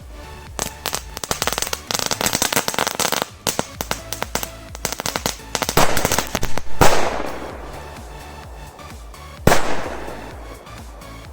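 Firecrackers going off in a campfire: rapid runs of crackling pops, then two loud single bangs about seven and nine and a half seconds in, each with a fading tail. Background music plays underneath.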